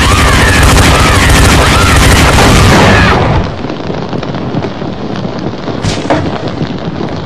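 A very loud explosion sound effect bursts in suddenly and lasts about three seconds, then drops to a quieter, continuing noise with one sharp crack near the end.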